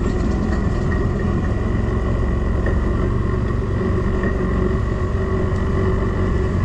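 ATV engine running at a steady pace while riding, with a thin steady whine above the engine note.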